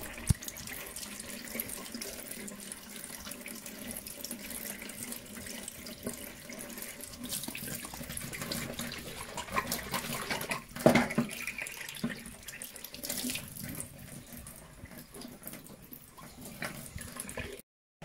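Tap water running into a stainless steel sink as a boiler's plastic condensate trap is rinsed clean under it, with a few sharp knocks in between.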